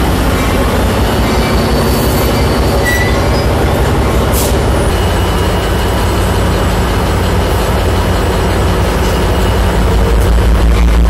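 Metrolink train led by diesel locomotive RBRX 18520, an EMD F59PH, rolling slowly through the station and stopping, its engine running with a steady low rumble. A brief high wheel or brake squeal comes about four seconds in.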